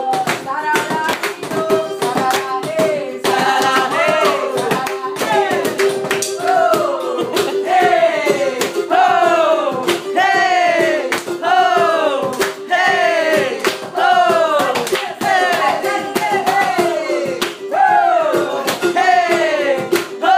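Informal Afro-Brazilian percussion jam: hand clapping and sharp percussive clicks under a repeated swooping tone that slides down in pitch about once a second, over a steady held note.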